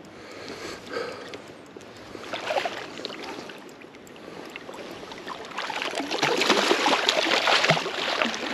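Water splashing, light at first, then loud and busy with many quick splashes from about six seconds in.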